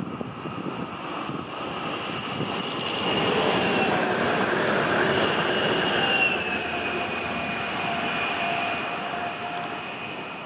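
Passenger multiple-unit train passing on electrified track. Its running noise swells to a peak midway and then fades, with a high whine that dips slightly in pitch as it goes by.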